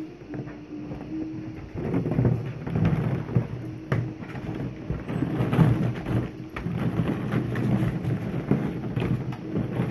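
Plastic ball-pit balls rattling, clattering and knocking against each other and a plastic wading pool as puppies and a dog push through them, a dense jostling noise that builds about two seconds in.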